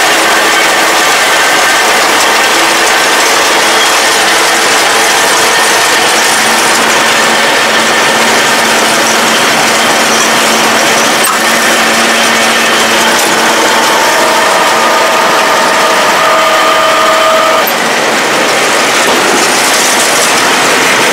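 Kubota tractor and the PTO-driven round baler it tows, running steadily together. The loud, even mechanical noise comes from the engine, the spinning driveline and the baler's mechanism, with a faint whine that comes in for a few seconds past the middle.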